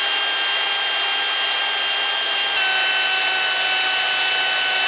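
Cordless drill running steadily, its bit spinning inside a 3D-printed plastic stud to bore out the hole so the stud will fit. The motor whine is steady and drops slightly in pitch about two and a half seconds in.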